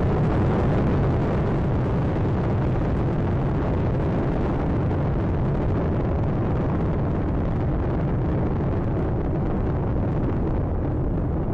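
Space Shuttle Atlantis's solid rocket boosters and main engines firing during ascent: a steady, deep rumble with no breaks. The higher part of the noise thins toward the end.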